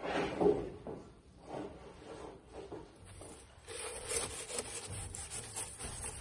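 Large stretched canvas on a wooden frame being laid down and slid across a concrete floor: a knock as it goes down, then irregular rubbing and scraping as it is pushed into place. A steady hiss comes in about halfway through.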